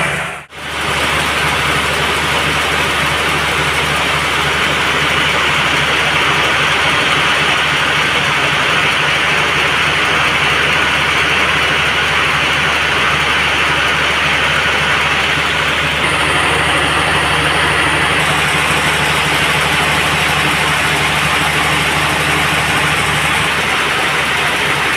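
Sawmill machinery running steadily: an engine's low drone under the even noise of a band saw. The sound drops out briefly about half a second in.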